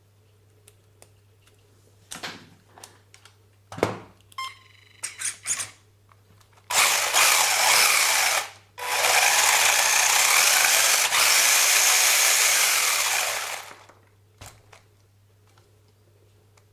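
Small electric motor running in two loud bursts, the first about two seconds long and the second about five, after a few clicks and knocks of handling.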